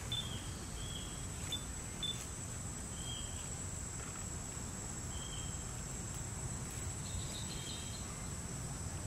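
Outdoor ambience: a steady, thin, high insect drone over a low wind rumble, with a few short high chirps scattered through it.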